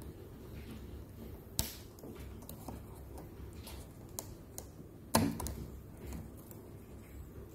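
Light plastic clicks and ticks of laptop keycaps being pried at with a thin metal spudger, with two louder clicks about one and a half and five seconds in. The keycap is being worked loose to reach dust under a dead key.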